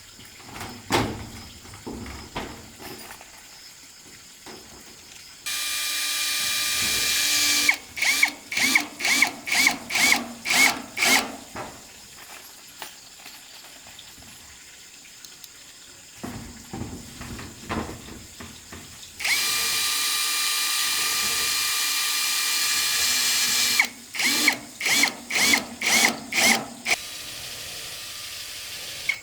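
Electric drill whining steadily for a few seconds, then run in a quick series of short bursts, about two a second. The same pattern comes twice, the second steady run longer. Faint knocks come before and between the runs.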